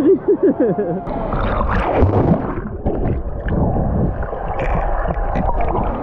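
Pool water sloshing and gurgling around a GoPro held at the surface as it is moved through the water, with a short voice in the first second.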